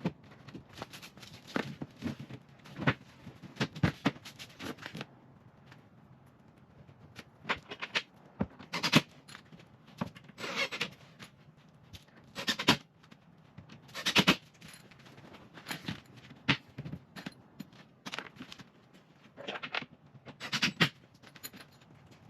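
Metal cabinet brackets and screws being handled and fitted against the cabinet's wood panels: scattered clicks, knocks and short metallic rattles with pauses between them.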